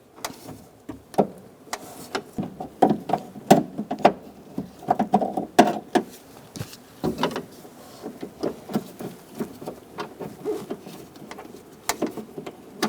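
Irregular clicking, rattling and knocking of metal and plastic as the metal bracket is worked loose from a Honda CR-V front exterior door handle inside the door shell.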